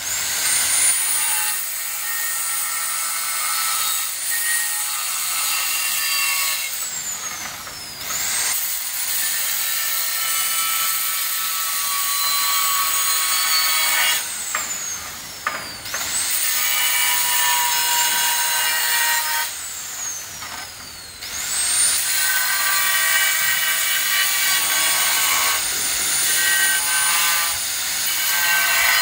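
Handheld angle grinder cutting a red ceramic floor tile: a high motor whine with gritty cutting noise, rising each time the grinder spins up and gliding down as it is released, four runs of several seconds each.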